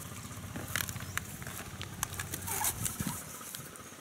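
Irregular clicks and light knocks from work on a chopped-open coconut palm trunk, its fibre being pried apart in the search for palm weevil grubs.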